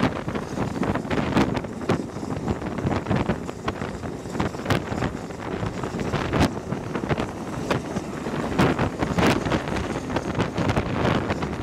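Wind buffeting the microphone at the window of a moving passenger train coach, over the steady rumble of the train running on the rails, with scattered sharp clicks.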